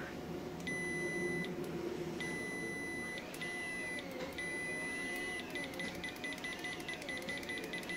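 Mustool MT15S multimeter's continuity buzzer beeping at a high pitch as the test probes make and break contact: a few steady beeps of about a second each, then a fast run of short broken beeps in the second half.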